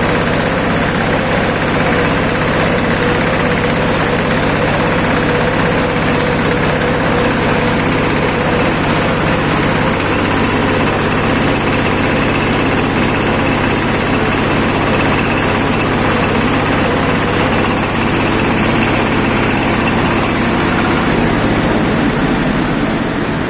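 Diesel engine of a hand-fed silage baler running steadily under the baler's mechanical clatter, a loud constant drone with a low hum; the low hum changes pitch near the end.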